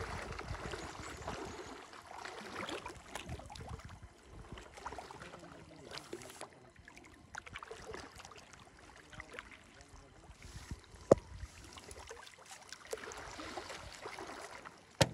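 River water sloshing and splashing as a man wades waist-deep and works a hand net, louder in the first few seconds and again near the end as the net is lifted and water streams off it. A sharp click sounds about eleven seconds in.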